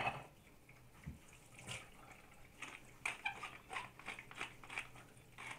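Pepper being shaken by hand over cubed raw potatoes in a bowl: a run of light, crisp ticks about three a second, after a soft thump about a second in.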